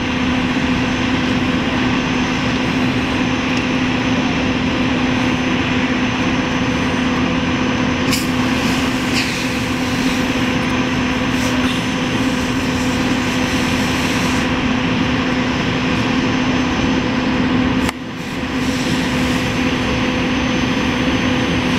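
A steady engine drone with a constant hum, mixed with the rushing hiss of a fire hose spraying water onto a burning SUV. A few brief sharp knocks come about a third of the way in.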